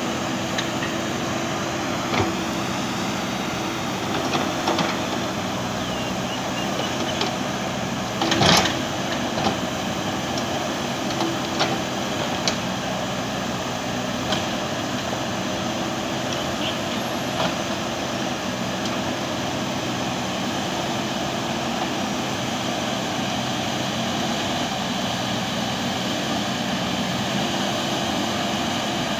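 JCB backhoe loader's diesel engine running steadily under load as the backhoe digs, with scattered knocks and clanks, the loudest about eight and a half seconds in.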